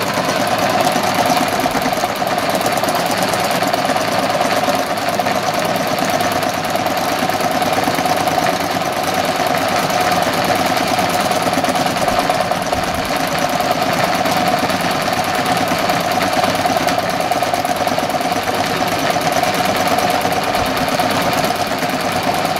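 Domestic sewing machine running steadily at speed for free-motion stitching, its needle going rapidly up and down through the fabric.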